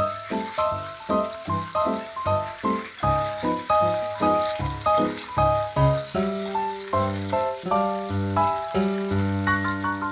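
A croque monsieur sandwich soaked in egg sizzling steadily in a hot frying pan, heard under background piano music with a steady run of notes.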